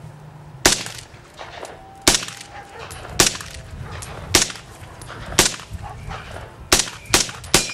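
Eight rifle shots from an M1 Garand, fired semi-automatically about a second apart, with the last three coming faster near the end.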